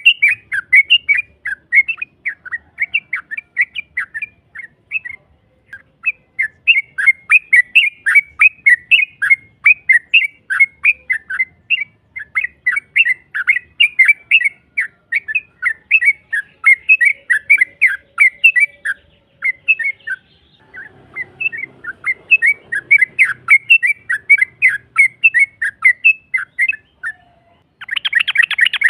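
Yellow-vented bulbul (trucukan) singing its long, rapid chattering 'ropel': runs of short, bubbly notes at about four a second, broken by brief pauses. A harsh, buzzy burst comes near the end.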